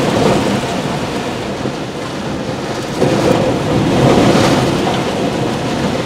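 Tropical-storm winds gusting at hurricane strength with wind-driven rain; a stronger gust surges in suddenly about three seconds in.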